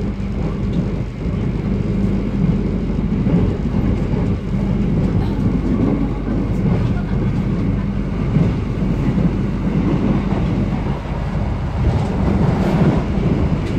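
Running noise of the Argo Wilis express heard from inside a moving passenger coach: a steady low rumble of the wheels on the rails, with a faint steady hum and occasional light rattles.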